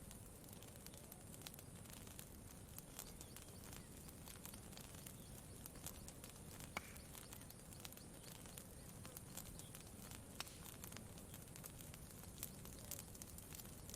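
Campfire crackling quietly: irregular small pops and snaps, some sharper than others, over a faint low rumble.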